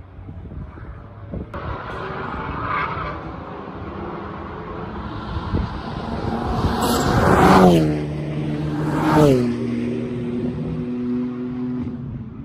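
BMW F80 M3 Competition's twin-turbo straight-six at full throttle as the car comes down the straight, the note rising and growing louder, then dropping sharply in pitch as it passes about seven and a half seconds in. A second pitch drop follows about a second and a half later, an upshift, and the engine runs on as the car pulls away.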